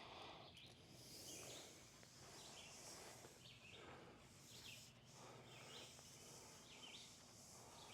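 Near silence: faint outdoor ambience with soft, repeated high bird chirps.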